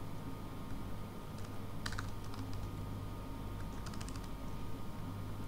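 Computer keyboard being typed on in short clusters of keystrokes, about two seconds in and again about four seconds in, over a steady low hum.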